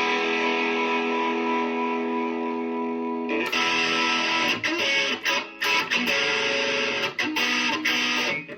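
Guitar music. A chord rings out held for about three seconds, then the guitar switches to choppy strummed chords with short stops between them.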